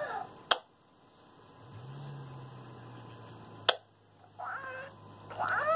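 Hatchimal toy inside its egg making warbling electronic chirps and coos, with two sharp pecking taps about three seconds apart and a low steady hum between them.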